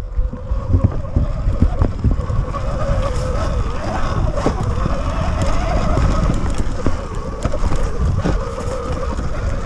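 Sur-Ron X electric dirt bike climbing a dirt trail: a thin, wavering whine from its electric motor and drivetrain under heavy wind buffeting on the microphone, with scattered knocks as the bike rides over bumps.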